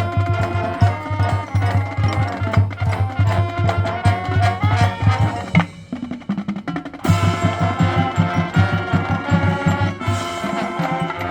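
High school marching band playing, with drums beating a fast, even pulse under sustained wind chords and mallet percussion. About six seconds in the band thins out for a moment, then the full ensemble comes back in together.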